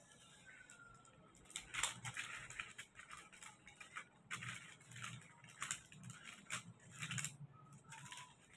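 Metallic foil paper crinkling and rustling as it is handled, in faint, irregular bursts with a few sharper crackles.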